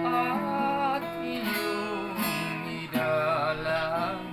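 Acoustic guitar strummed in a slow kundiman chord accompaniment, chords struck afresh several times.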